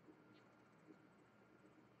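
Near silence: faint room tone with a low steady hum and a couple of barely audible small ticks.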